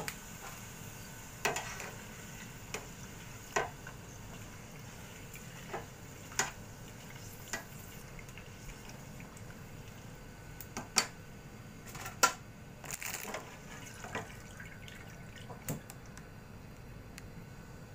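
Papadums frying in hot oil in a deep fryer with a steady sizzle, while metal tongs click and tap against the steel fryer a dozen or so times, loudest twice a little past the middle.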